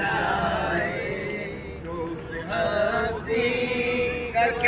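A man's voice chanting an Urdu naat (devotional poem in praise of the Prophet), drawing out long, wavering held notes without clear words.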